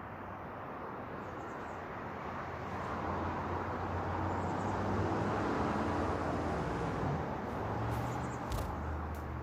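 A motor vehicle going past, its engine hum and road noise swelling to a peak about halfway through and then fading.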